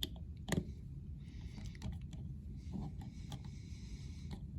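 Small metal clicks of a Leatherman bit ratchet driver being handled and turned: a few sharp separate clicks, then stretches of fast, fine ratchet clicking.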